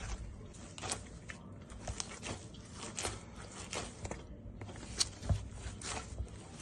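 Hands kneading stiff paratha dough on a metal tray: irregular squishing and scraping strokes, about one or two a second, with a pair of louder thumps about five seconds in.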